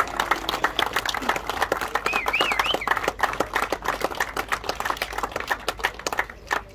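A crowd applauding, many quick irregular claps, with a short wavering whistle about two seconds in.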